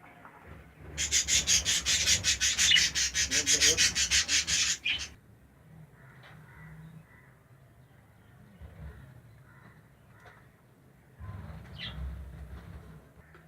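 Rapid rasping scrapes, about seven a second, for about four seconds starting a second in, followed later by faint bird chirps.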